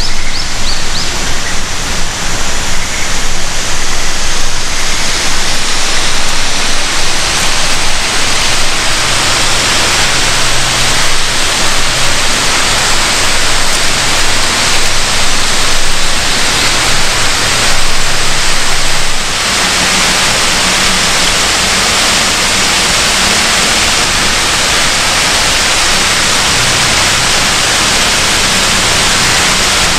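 Loud, steady rushing water. The sound drops a little and evens out about nineteen seconds in.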